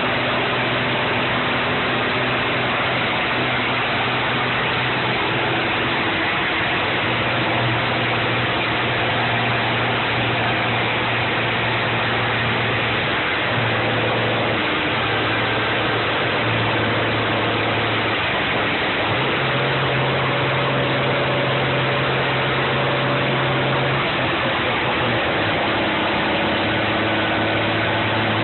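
M35A2 deuce-and-a-half army truck's turbocharged multifuel diesel engine running while the truck is driven, under a steady, loud rush of noise. The engine note steps up and down in pitch several times.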